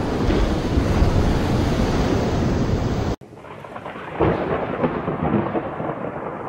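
A loud, deep explosion rumble with the rush of water thrown up, cut off abruptly about three seconds in. It gives way to a thunderstorm: a sudden clap of thunder about a second later, then rumbling over a rain-like hiss.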